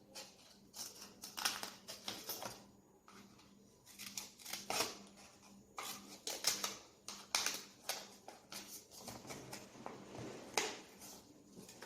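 Scissors cutting through folded paper, in irregular short snips, roughly one or two a second.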